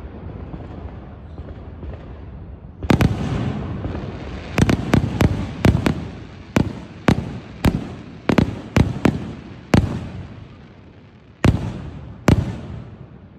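Aerial firework shells bursting: one boom about three seconds in, then a quick run of about fourteen bangs, and two last booms near the end, each followed by a rolling echo.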